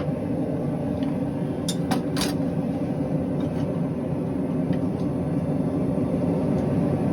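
A steady low roar throughout, with a few light taps of a small hammer on the hot stainless steel spoon head about two seconds in.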